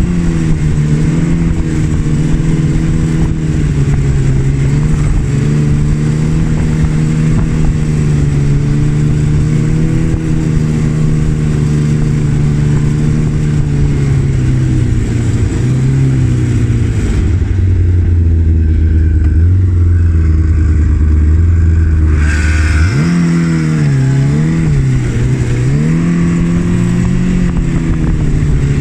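Arctic Cat ZL 440 snowmobile's two-stroke engine running under way, fitted with a newly installed secondary clutch. Its pitch wavers with the throttle, drops to a low, steady note for several seconds past the middle, then climbs back with quick rises and falls.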